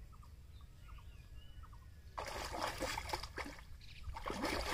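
Water splashing and sloshing at a fishing line in a weedy pond, as a hooked fish thrashes at the surface, in two bursts: one beginning about two seconds in and a shorter one near the end.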